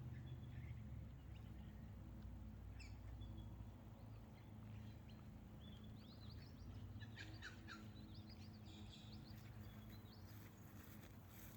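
Near silence with faint bird chirps over a low steady background noise: one chirp about three seconds in, then a run of chirps in the second half.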